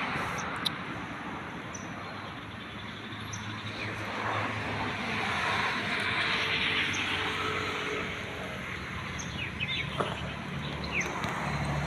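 Outdoor ambience dominated by a passing road vehicle, whose noise swells and fades in the middle. A few short bird chirps come near the end.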